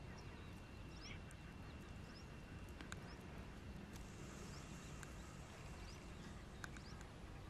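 Faint outdoor background: a steady low rumble with scattered short bird chirps, and a thin steady high tone that stops about six seconds in.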